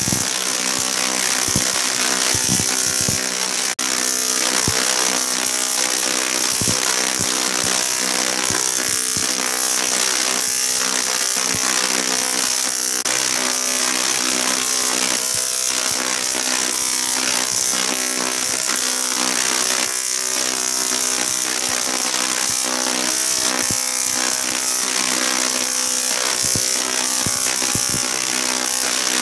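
Large dual resonant solid state Tesla coil (DRSSTC) firing long spark discharges: a loud, steady electrical buzz with a crackling hiss. There is a brief break about four seconds in.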